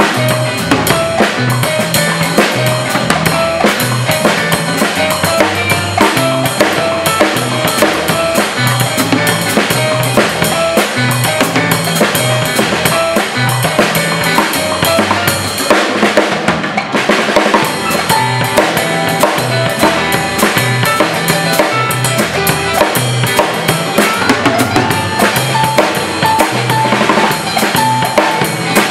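Drum kit played with sticks in a salsa groove, with rim clicks, bass drum and snare, over a backing track with a bass line and a repeating melodic figure.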